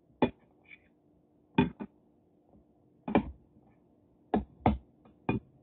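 Crab shell being cracked and picked apart by hand: a series of about eight short, sharp snaps at uneven intervals.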